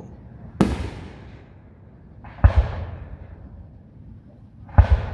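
Aerial fireworks shells bursting: three booms about two seconds apart, the second and third each a quick double bang, with rumbling echoes trailing after each.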